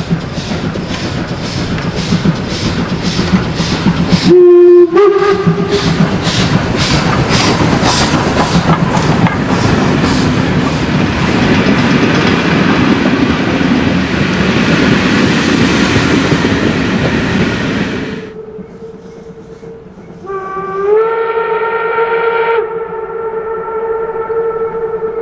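Steam locomotive 64 419, a class 64 tank engine, approaches with rhythmic exhaust beats and gives a short, very loud whistle blast about four seconds in; its coaches then rumble and clatter past. After a cut, its whistle sounds again from a distance, faint at first, then louder with a slight rise in pitch, and held long until the end.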